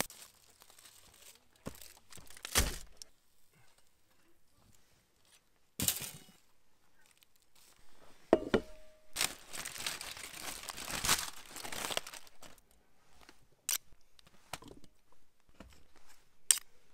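Camp cooking sounds: aluminium foil crinkling and tearing as foil food packets are handled, with scattered sharp clicks and knocks of utensils and a longer stretch of rustling in the middle.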